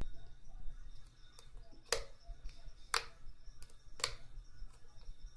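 Glow-in-the-dark slime being squeezed and worked in the hands, giving sharp clicks and pops, the loudest about once a second from about two seconds in, with fainter ticks between.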